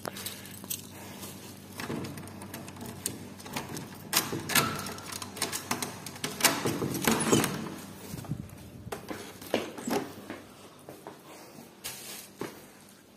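Keys jangling and a lever door handle and latch clicking as a wooden door is unlocked and opened, a cluster of sharp clicks and rattles strongest in the middle.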